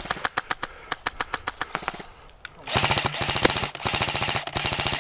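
Airsoft electric rifle firing on full auto as a rapid run of cracking shots. It fires one burst of about two seconds, pauses briefly, then fires a second, denser burst of over two seconds that stops abruptly near the end.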